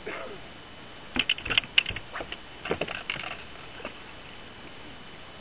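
Quick, light clicks and clatters in two short clusters, about a second in and again near the middle, with one more a little later, as fishing tackle is handled on the boat deck.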